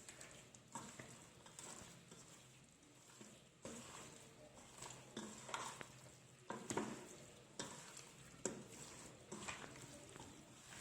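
Hands kneading raw chicken pieces in a chilli, turmeric and garam masala marinade in a bowl: faint, irregular wet squishing and rubbing sounds.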